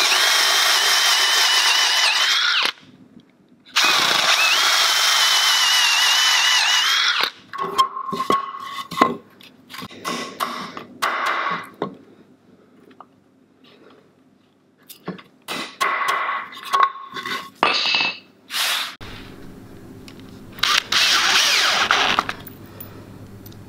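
Drill boring into a wooden fence-post table leg in two runs of a few seconds each, with a steady high whine. Then a spell of scattered sharp knocks as a hammer taps a metal T-nut into the hole. Near the end the drill runs again briefly, driving a screw.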